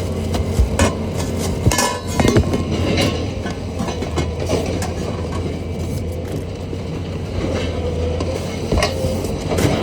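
Pieces of scrap metal clanking and knocking as they are handled, a few sharp strikes near the start and one near the end, over a steady low mechanical hum.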